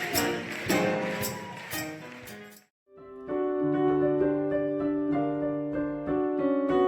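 Music: a song with a steady beat cuts off about two and a half seconds in. After a brief silence, piano music with held chords begins.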